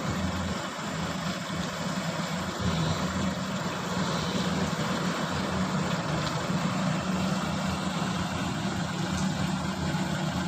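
Heavy machinery engine running steadily with a constant low hum while a backhoe is being lowered by crane into a drain.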